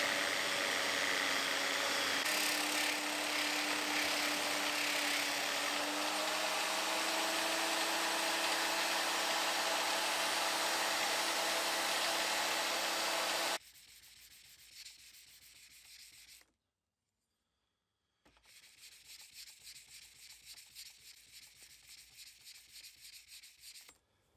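Bench-clamped angle grinder running with a fine-grit (400) sanding disc on a soft pad, an axe edge held against it for sharpening; the motor's hum steps up slightly in pitch a few seconds in. It stops abruptly a little past halfway, leaving only a faint, rapid ticking.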